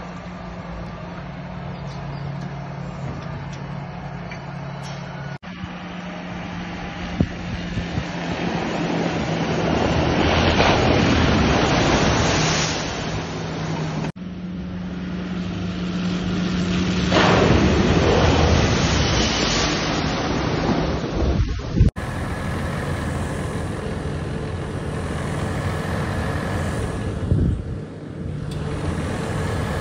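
Diesel tractor engines running in a string of short clips, broken by abrupt cuts. First comes a steady engine note from a tractor holding up a tipping trailer. Later the engine sound is louder and mixed with a rushing noise as a JCB Fastrac drives through standing water.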